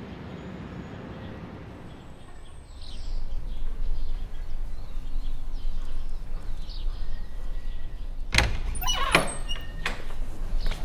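Low, steady street rumble with a few faint bird chirps; about eight seconds in, a sharp bang followed by a quick run of clattering knocks and short squeaks, like a wooden door being banged and rattled.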